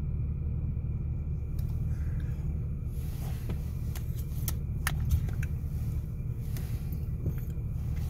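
Steady low rumble of a car cabin, with a few light clicks and scrapes from a spoon working a plastic pudding cup in the middle.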